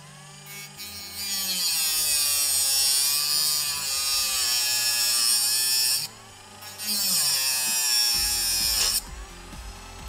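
Rotary tool with a thin cutoff wheel grinding through the metal legs of a circuit-board-mounted radio switch: a high-pitched whine whose pitch dips and rises as the wheel bites. It stops briefly about six seconds in and again near the end.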